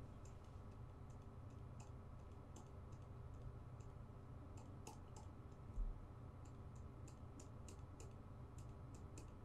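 Faint, irregular clicking from the computer input used to paint, mouse or pen, coming more often in the second half, over a low steady hum. A dull thump about six seconds in.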